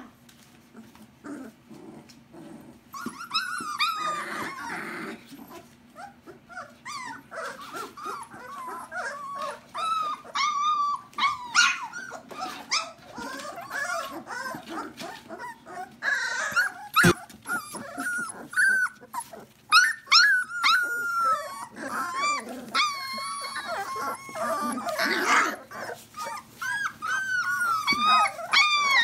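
A litter of young puppies whimpering, yipping and growling as they play-fight, many short high squeals overlapping one another. A single sharp click about 17 seconds in.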